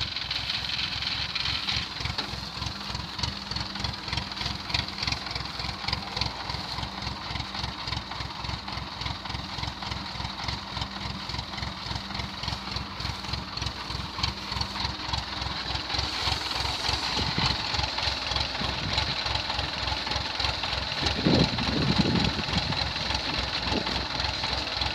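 Rice combine harvester's diesel engine running steadily with a fast even low throb, under a constant high whine from its working machinery.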